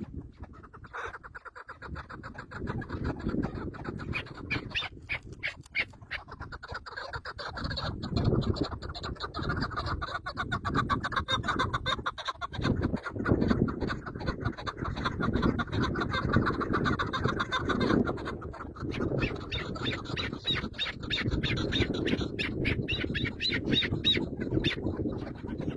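Birds squawking in fast, rapid pulses, building up after the first few seconds.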